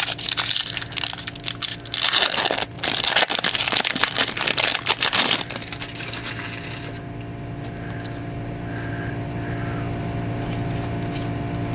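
A baseball card pack's wrapper being torn open and crinkled, a dense crackling that lasts about seven seconds and stops. After it only a steady low hum remains.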